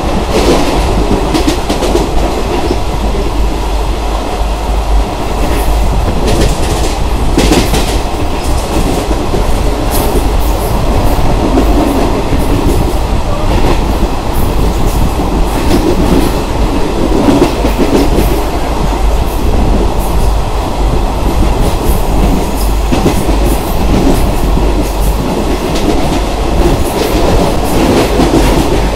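Indian Railways ICF passenger coach running on the track, its wheels clacking over the rail joints above a steady rumble, heard from the coach's open doorway.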